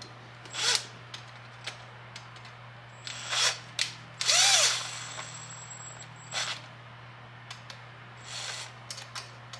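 Milwaukee cordless driver tightening small screws in about five short bursts, the longest about four seconds in, its motor whine rising and then falling.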